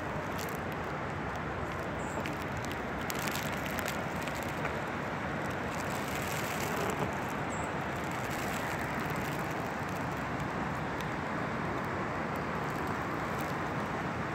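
Steady rushing roar of Class 4 river rapids about a hundred yards off.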